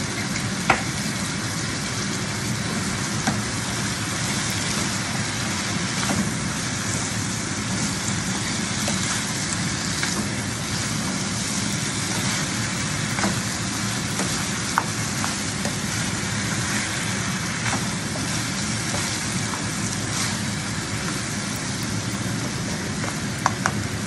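Pork ribs, onions and tomatoes sizzling steadily in a frying pan as shrimp paste is stirred in. A handful of short sharp clicks of the stirring utensil against the pan come through, two of them close together near the end.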